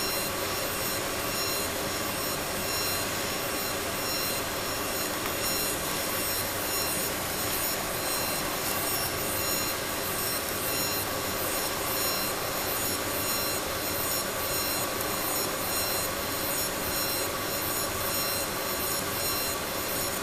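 Laser engraver running steadily, a constant machine hiss with several high, steady whining tones over it.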